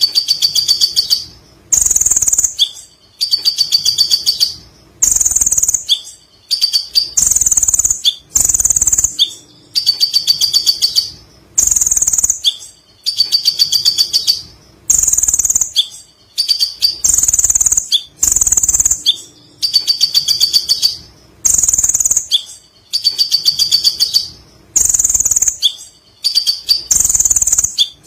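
A sunbird (kolibri ninja) singing long, rapid, high-pitched chattering trills, in bursts of about a second repeated with short gaps between them.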